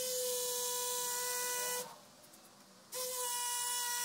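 Cordless drill motor running with a steady whine in two bursts, stopping for about a second in the middle, as it drills through a tank connector's screw holes into a fibreglass-sealed concrete pond wall to mark the hole positions.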